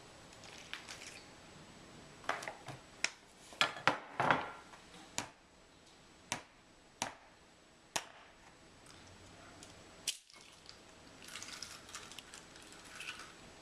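Kitchen utensils clicking and knocking against a mixing bowl, about a dozen sharp, irregular knocks, followed by softer scraping near the end.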